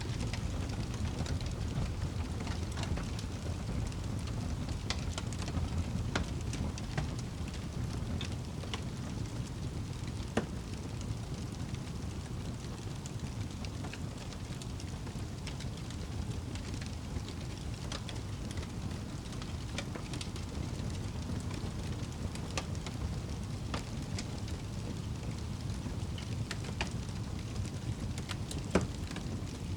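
Wood fire burning in a fireplace: a steady low rumble of flames with scattered crackles and pops, one sharper pop about ten seconds in and the loudest near the end.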